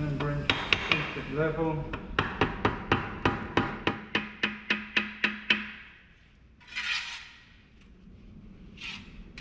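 Rapid, even taps on a spirit level laid across freshly bedded bricks, about four or five a second for several seconds, knocking the sill bricks down into their mortar bed to level. Then a short scrape.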